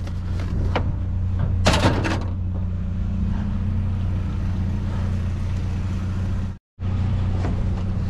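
Engine idling with a steady low hum. A couple of knocks and rattles sound in the first two seconds, and the sound drops out for a moment near the end.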